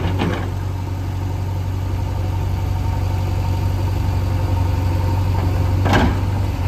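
JCB 3DX backhoe loader's diesel engine running with a steady low drone, with a brief harsher noise about six seconds in.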